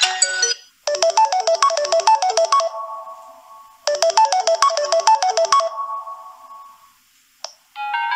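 Samsung Galaxy A41 preset ringtone: a quick run of bright notes ending on a held note that fades, played twice. The previous ringtone cuts off just before it, and a different ringtone starts near the end.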